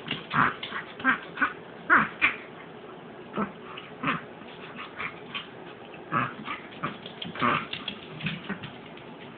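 Yorkshire terrier reverse sneezing: short, forceful pulls of air in through the nose, in irregular bunches of about one to three a second. Reverse sneezing is a spasm of the soft palate and throat.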